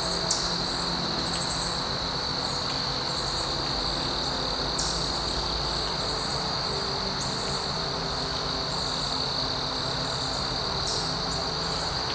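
Steady high-pitched insect trilling, as of crickets, unbroken throughout, with a few brief higher chirps about a quarter of a second, five seconds and eleven seconds in.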